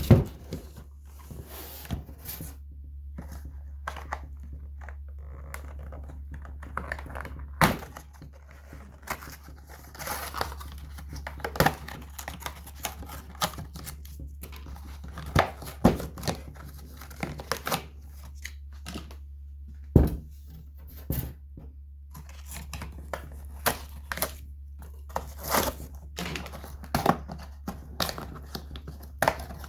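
Cardboard backing being ripped by hand off a screw-sealed ratchet-strap package: irregular tearing and crinkling with sharp knocks, repeated in short bouts with a struggle to get it open. A steady low hum runs underneath.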